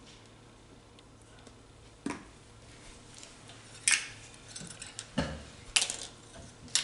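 Scattered knocks and clinks of kitchen containers and utensils being handled and set down on a table, about five separate strikes, some with a short ring.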